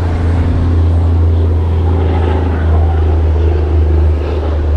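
Boat's outboard motor running at a steady pitch, a loud, even low hum.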